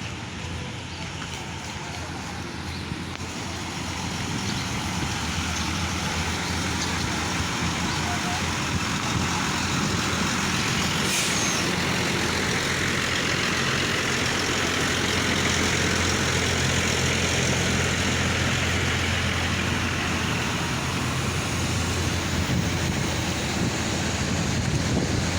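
Large diesel bus engine running close by, with steady engine noise that grows louder about four seconds in.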